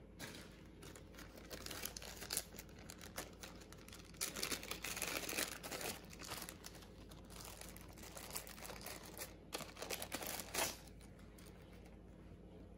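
A small clear plastic bag crinkling as it is handled and opened, in irregular crackling bursts, loudest about four to six seconds in and again at about ten seconds.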